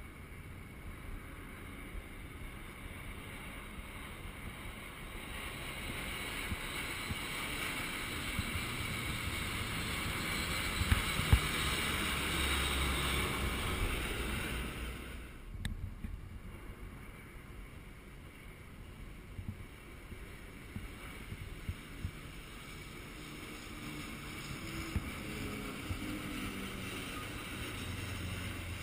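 Military aircraft formation flying over, a rushing jet noise that builds for about ten seconds to its loudest and then breaks off abruptly just past the middle. A fainter rush of the next passing aircraft builds up again toward the end.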